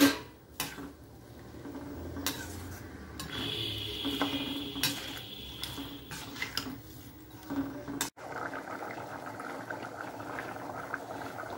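Metal ladle stirring chickpea curry in a stainless steel kadai, clinking against the pan several times. After a cut about eight seconds in, the thick curry is bubbling at a steady boil.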